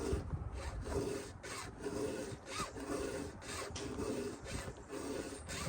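A file rasping across the cutters of a square-ground chainsaw chain in short repeated strokes, about two a second, as the chain is hand-sharpened.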